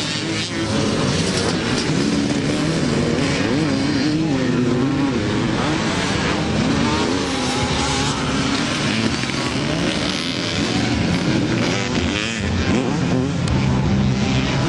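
Pre-1990 vintage motocross motorcycles on a dirt track, their engines revving, the pitch rising and falling as the riders work the throttle through the course.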